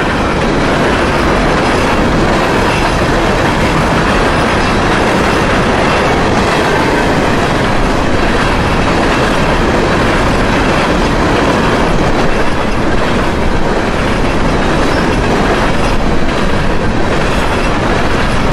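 Freight train of open-top hopper cars rolling past: a loud, steady rumble and rattle of steel wheels on the rails.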